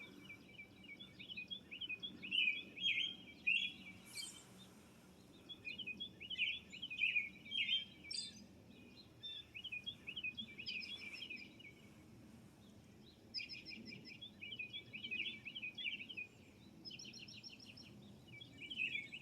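Birdsong: an American robin singing its run of short whistled phrases, fairly faint, with other birds chirping. A faster rapid trill comes in twice in the second half.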